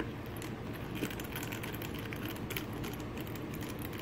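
Small T5 Torx screwdriver turning tiny screws out of a plastic GPS unit's casing: a scatter of light clicks and ticks, thickest from about half a second to three seconds in.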